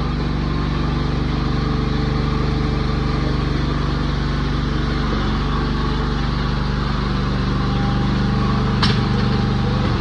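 Excavator's diesel engine running steadily, its pitch shifting a little about halfway through, with a single sharp knock near the end.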